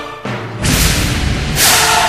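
Dramatic theme music for a transition: the sustained choral music breaks off, a deep booming hit with a rushing noise comes in about half a second in, and a second crash at about a second and a half brings the choir back.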